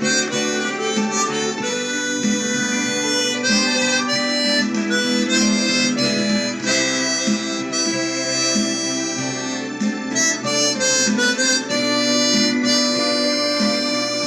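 Tombo Unichromatic harmonica playing a melody of held notes over a lower backing accompaniment.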